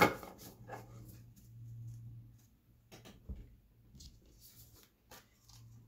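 A tarot card slapped down on a table: one sharp snap at the start, then a few faint taps and rustles of cards being handled, over a low steady hum.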